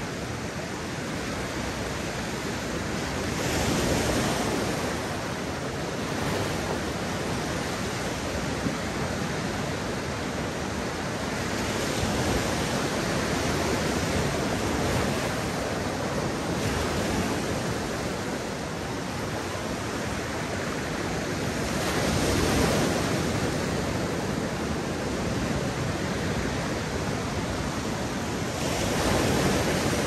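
Mediterranean surf on a beach: a continuous rush of waves breaking and washing up the shore, swelling louder as a wave breaks roughly every eight to ten seconds.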